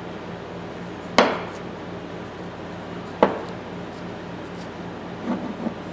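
Two sharp metallic clinks about two seconds apart from a steel tap handle being worked by hand, its metal parts knocking together while its threads are cleaned with a cloth.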